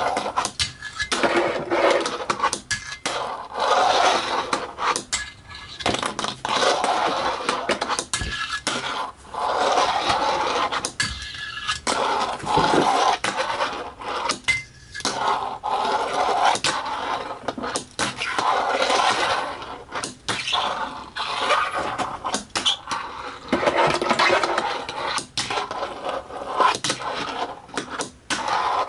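Blackriver fingerboard rolling back and forth on a wooden desk: the small wheels give a rough grinding rumble in stretches of a few seconds, broken by sharp clacks as the board is popped and lands.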